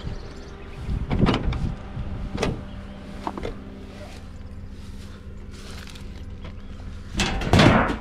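An old minibus's sliding side window is slid open by hand near the end: a loud scraping rattle. Before it come a few short knocks of hands on the van body.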